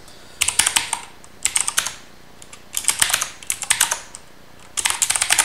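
Typing on a mechanical computer keyboard: five quick runs of key clicks with short pauses between them.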